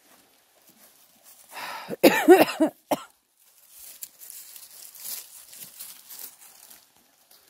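A goat bleats once about two seconds in, a short quavering call. Then light footsteps and rustling through dry fallen leaves.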